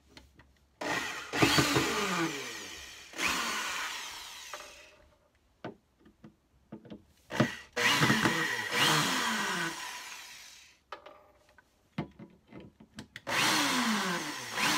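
Electric drill-driver backing wood screws out of a speaker cabinet's recessed metal handle, running in several bursts of one to three seconds, its pitch falling within each run.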